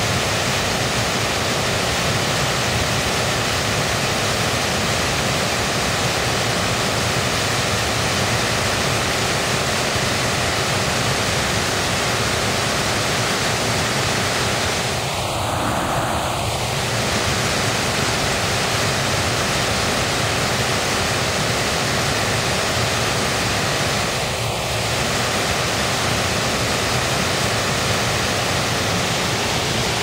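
Waterfall: water plunging over rock ledges into a pool, a steady, even rush.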